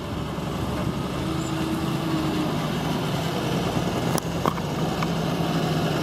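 Fendt 826 Vario tractor's six-cylinder diesel engine running steadily as the tractor drives past close by, growing gradually louder as it approaches.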